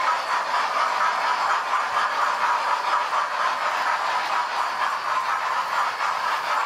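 Model train running along the layout track: a steady rattle of its motor and wheels on the rails.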